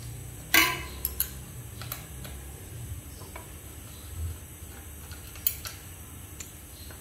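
A few sharp metallic clicks of a hex key working the caliper mounting bolts of a bicycle's front hydraulic disc brake, the loudest about half a second in, over a low steady hum.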